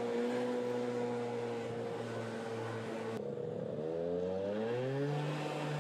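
A vehicle engine running at a steady pitch, then, after a cut, an engine revving up with a rising pitch that levels off near the end.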